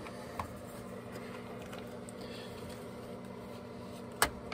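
Light handling inside a wooden cabinet: a small click, then a sharper click or knock a little over four seconds in, over a quiet steady low hum.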